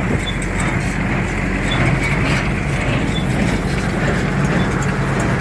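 CLAAS Dominant conventional small square baler running steadily behind a tractor, the engine hum under the mechanical noise of the baler, with a faint high squeak repeating about every second and a half.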